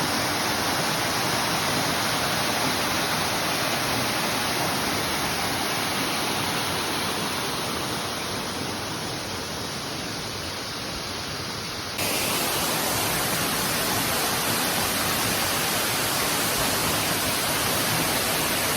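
Waterfall's rushing water: a steady, dense hiss that dips slightly and then jumps back at a cut about twelve seconds in.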